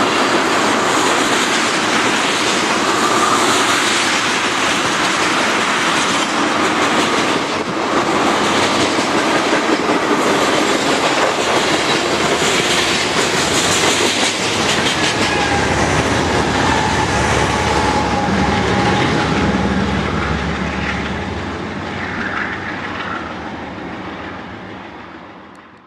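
Freight cars of a long mixed manifest train rolling past, wheels clattering steadily over the rail joints, with a few thin squealing tones in the second half. The sound fades away over the last few seconds.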